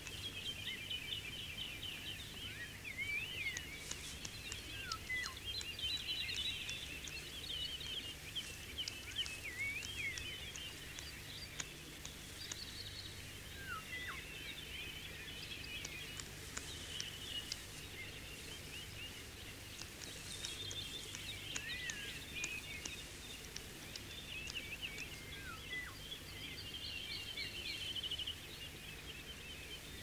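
Wild birds calling together: overlapping chirps and trills, with short falling whistles repeating every few seconds, over a faint steady low hum.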